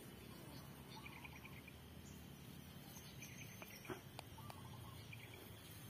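Near silence, with a few short, quick series of faint chirps and a couple of light clicks about four seconds in.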